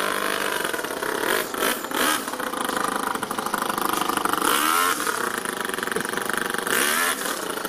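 Toyan FS-L200 two-cylinder four-stroke nitro engine in an RC crawler running under throttle as it drives. Its revs rise and fall about halfway through and again near the end.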